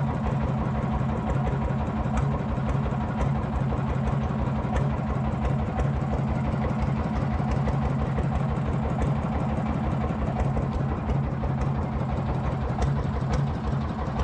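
Small fishing boat's engine running steadily at low trolling speed, a constant low hum and throb.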